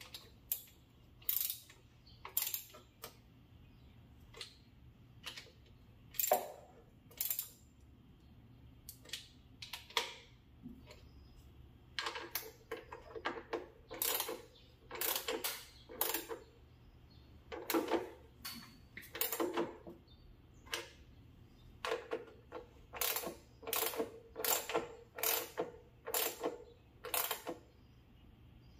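Irregular metallic clicks and clinks of hand tools and metal parts being handled, coming faster in the second half.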